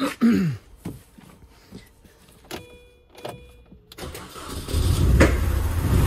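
Mini Cooper R50's four-cylinder petrol engine starts about four seconds in and runs roughly, with one sharp backfire pop a second later. It is misfiring badly and running on only some of its cylinders, which the owner traces to a dead injector and no compression on cylinder one.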